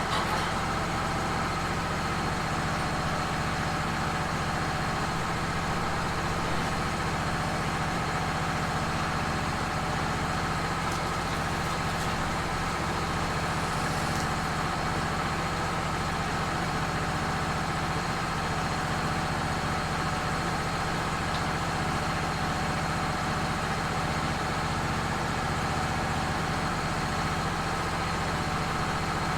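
An engine running steadily at a constant speed, with a few steady higher tones over its low hum and no change in pitch.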